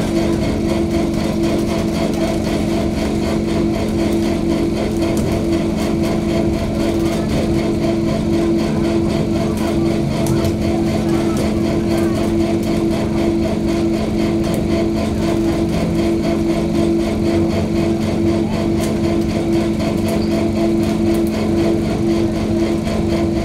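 Steady, loud machinery drone from the ferry's engines, a low hum with a slightly pulsing tone over it, unchanging throughout.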